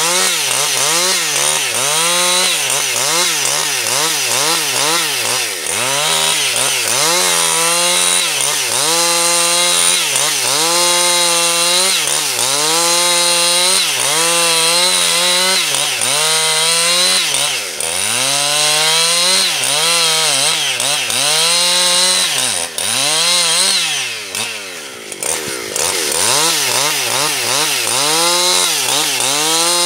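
Husqvarna 272XP two-stroke chainsaw ripping lengthwise along a log, its engine pitch sagging and recovering over and over as the chain loads in the cut. Late on, the engine briefly drops lower and quieter, then climbs back to full speed.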